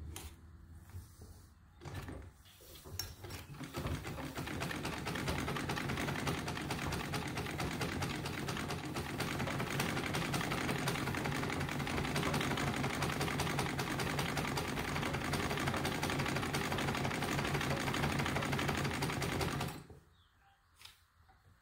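Singer 66 treadle sewing machine stitching: a fast, steady mechanical clatter that starts about two seconds in, builds up to speed, and stops suddenly near the end as the handwheel is brought to a halt by hand.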